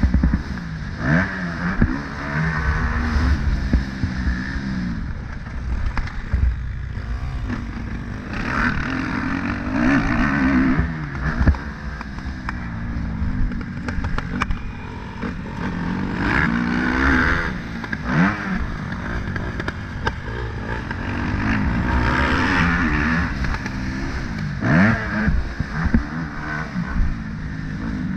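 A vehicle engine revving up and down over and over, its pitch climbing under acceleration and falling back every few seconds, over a steady low rumble.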